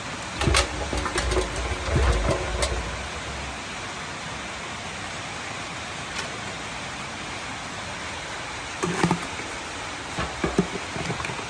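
Steady hiss of falling rain, with a cluster of knocks and low thumps about half a second to three seconds in and a few more clicks near the end.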